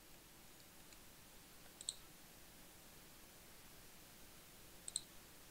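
Two faint computer mouse clicks, each a quick pair of strokes, about three seconds apart, over near silence.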